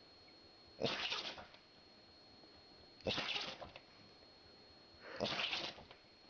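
A dog sneezing three times, about two seconds apart: short, sharp, breathy bursts. A faint steady high-pitched whine runs underneath.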